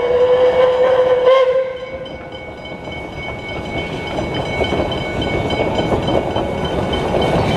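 Steam whistle of an NA-class narrow-gauge steam locomotive blowing one long steady blast that stops about two seconds in, over the steady ringing of level-crossing bells. Then the rumble of the approaching train builds until the end.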